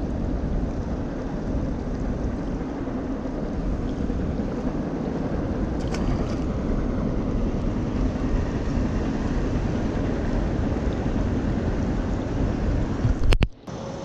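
Steady wind buffeting the microphone, with a sharp knock near the end and a brief drop-out right after it.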